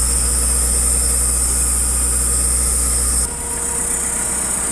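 Off-road vehicle engine idling close by, a steady low drone that drops suddenly in level a little over three seconds in.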